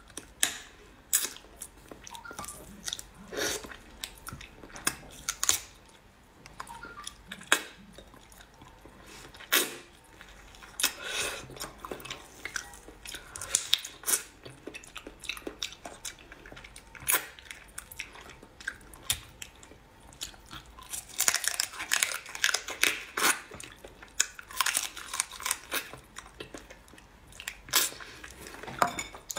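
Close-up eating of crab: biting and chewing through crab shell and meat in irregular sharp crunches and cracks, with a dense run of crunching about three quarters of the way in.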